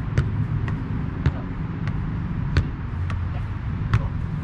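A football being kicked and juggled between players, a sharp thud at each touch, several irregularly spaced thuds roughly one or two a second, over a steady low rumble.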